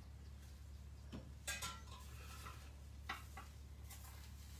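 A few faint clinks and scrapes of a metal fork against a frying pan as the edge of a gram-flour pancake is worked loose to check whether it is ready to flip, over a low steady hum.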